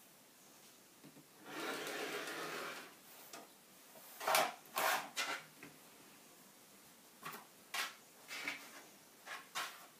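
A rotary cutter drawn through layers of quilted fabric on a cutting mat, one longer rasping cut about a second and a half in, then a string of short scrapes and knocks as the fabric is handled and trimmed.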